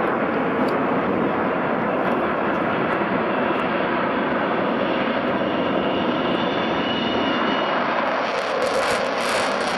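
Avro Vulcan's four Bristol Olympus turbojets roaring steadily as the delta-wing bomber banks and climbs in a low display pass.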